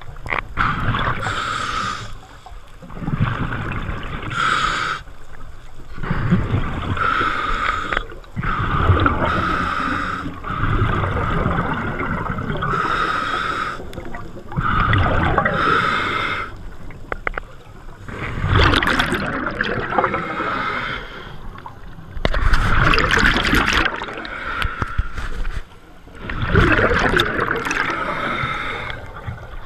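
A scuba diver breathing through an open-circuit regulator: repeated hissing inhalations alternating with the gurgling rush of exhaled bubbles. The bubbly exhalation bursts grow louder and crackle more in the second half.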